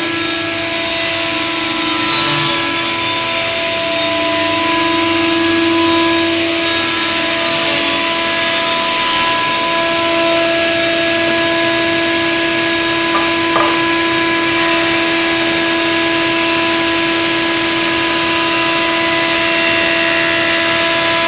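Jointer (surface planer) running with a steady hum while a wooden board is fed across its cutterhead; the hiss of the blades planing the wood comes in about a second in, drops away for a few seconds in the middle, and returns for the next pass.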